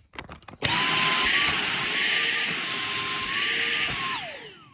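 Dyson V6 Flexi cordless vacuum's motor switched on with the trigger, running with a loud, steady high whine during a suction test against a hand over the bare inlet, its pitch shifting slightly. Near the end it is released and winds down with a falling whine.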